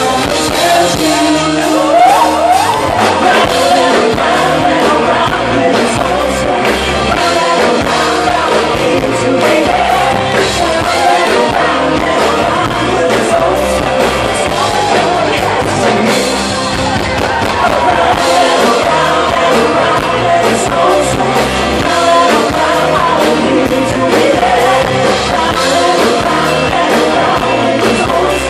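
A woman singing lead over a live pop-rock band: drums, bass and electric guitar playing steadily.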